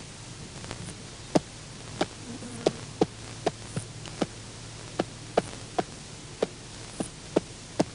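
Black-footed rock wallaby's feet tapping on rock as it hops: about fifteen sharp, irregularly spaced taps over a steady hiss.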